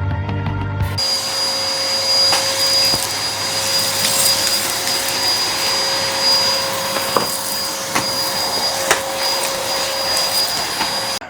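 Vacuum cleaner running steadily, a loud rushing noise with a steady high whine, cutting off abruptly near the end.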